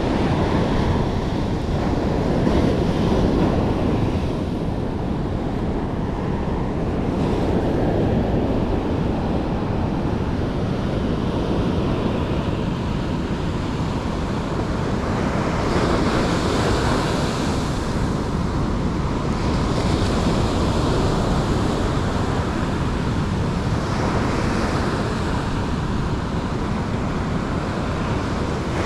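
Big ocean surf breaking on a sandy beach, a steady continuous wash of waves that swells louder twice in the second half as bigger waves break.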